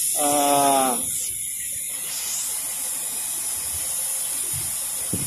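A steady hiss of plant background noise, unchanging throughout. Near the start a man briefly voices a short word of about a second.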